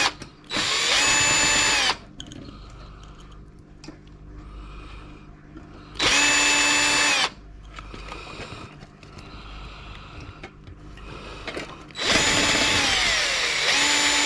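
Cordless drill-driver backing screws out of a computer case, in three short runs of a steady motor whine; the longest run, near the end, dips in pitch partway before steadying. Small clicks of handling between runs.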